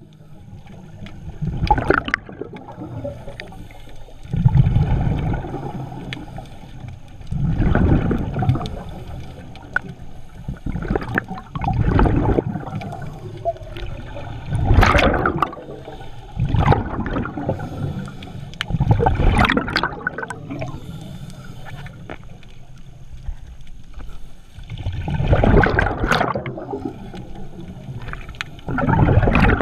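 Water bubbling and rushing, heard underwater through a camera housing, in about ten loud surges a few seconds apart over a steady low rush.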